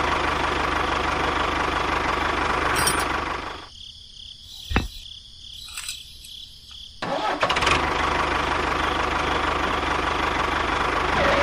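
Tractor engine running steadily with a low pulsing. It drops away for about three seconds in the middle, where a single sharp click sounds, then runs again.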